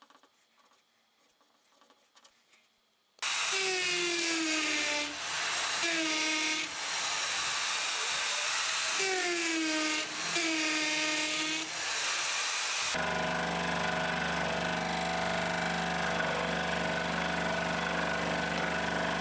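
A drill press starts about three seconds in and bores into a pine block, its motor pitch dropping under load and recovering four times. From about 13 seconds a scroll saw runs steadily, its blade cutting a circle out of the wood.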